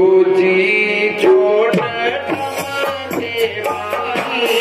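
A man singing a devotional Hindu kirtan bhajan to tabla accompaniment, with held, wavering sung notes over quick tabla strokes.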